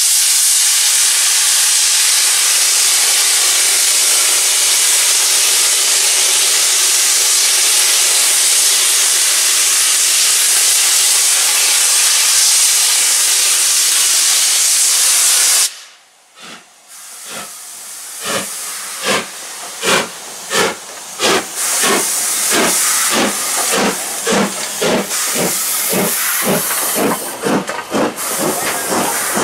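LMS Jubilee class steam locomotive 45699 starting away with its cylinder drain cocks open, giving a loud steady hiss of steam. About halfway through the hiss cuts off suddenly, and the exhaust beats come through, getting quicker as the engine gathers speed.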